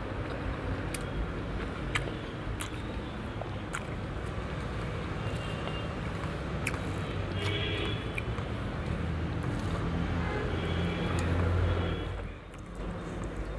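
Fingers mixing rice and vegetable fry on a steel plate, with a few light clicks against the metal. Under it is a steady low background rumble that swells near the end and then briefly drops away.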